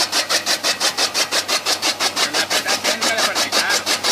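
Chaff cutter (kutti machine) run by a 2 hp Crompton motor, its flywheel blades chopping dry straw in a fast, even rhythm of about five cuts a second.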